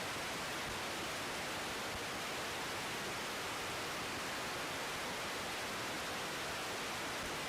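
Steady, even hiss of an air traffic control radio receiver between transmissions.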